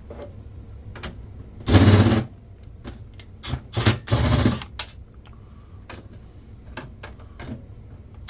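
Handheld power driver running in short bursts to back screws out of a computer case: one burst about two seconds in, then three quick ones around four seconds, with small clicks and knocks of metal parts between.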